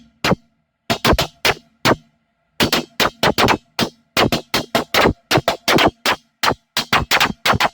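Electronic drum-machine beat: a run of short, sharp percussive hits, a few per second, broken by two brief silences in the first couple of seconds.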